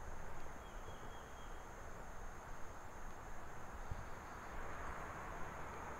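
Faint outdoor hiss with a steady, high-pitched insect drone, such as crickets or katydids. A faint low bump comes about four seconds in.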